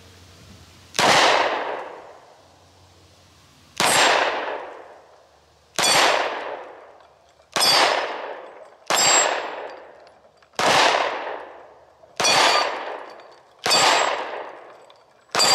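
Springfield XD Mod 2 Subcompact 9mm pistol fired nine times in slow, spaced shots, one to three seconds apart. Several shots are followed by the high ring of steel plate targets being hit.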